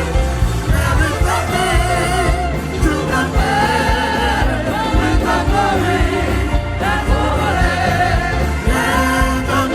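Gospel hymn sung with vibrato over instrumental accompaniment with a strong, steady bass.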